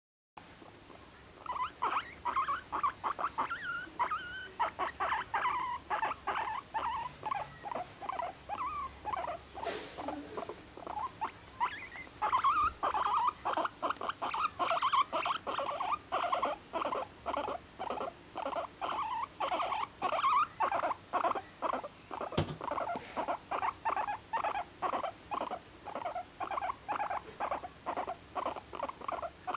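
Guinea pig chattering: a continuous string of short squeaking calls, a few per second, its usual 'kyuun-kyuun' and 'honyo-honyo' sounds rather than the angry 'pui-pui'. One sharp click about two-thirds of the way through.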